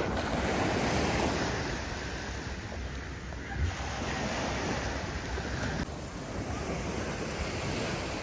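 Sea waves washing on the shore, an even rushing noise, with wind buffeting the microphone and a brief low bump about three and a half seconds in.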